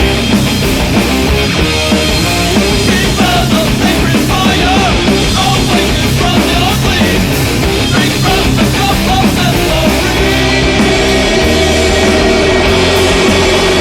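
Loud rock music with distorted guitars and a driving beat.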